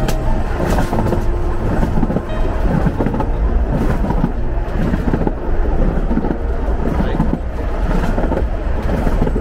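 Isle of Man Railway narrow-gauge steam train running, heard from inside a carriage with the window open: a loud, steady rumble of the coaches on the rails.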